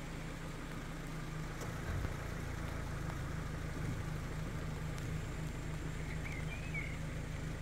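Steady low outdoor background rumble with a light even hiss, swelling briefly about two seconds in, and a few faint short chirps about six seconds in.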